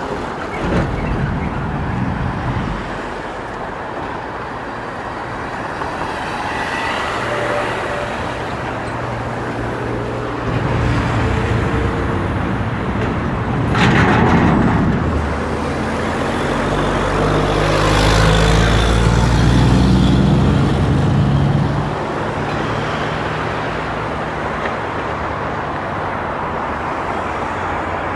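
Road traffic: motor vehicles driving past with a continuous engine and tyre rumble that swells and fades, a sharp loud pass about halfway through.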